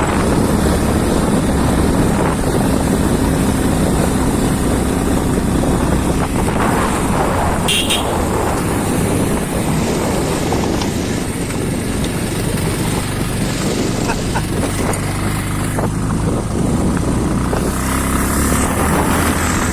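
Motorcycle engine running steadily while riding on a rough off-road track.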